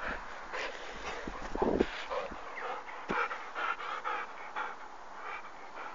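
Small dog panting quickly, about three breaths a second, with a low thump just under two seconds in.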